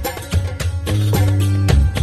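Background music with a steady beat: rhythmic percussion over low bass notes.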